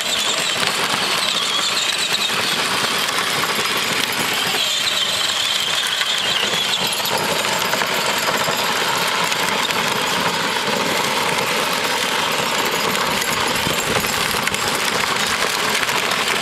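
Power Wheels Barbie Jeep Wrangler ride-on toy driving over dirt: a steady, loud grinding of its hard plastic wheels on the gravelly ground over the whine of its electric drive.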